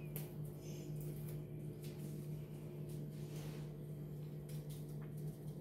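A steady low hum, with a few faint light clicks and soft rustles over it.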